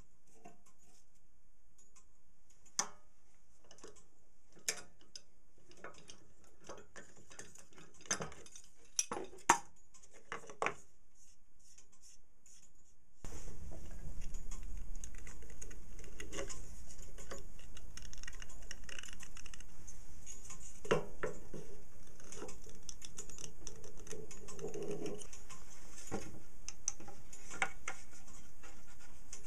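Metal parts and hand tools clinking and knocking as they are handled and set down on a workbench, a few sharp clinks at a time. About 13 seconds in, the background noise rises abruptly and the handling goes on with scattered knocks and rubbing.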